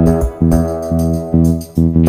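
Background music: a keyboard-led instrumental with a steady beat.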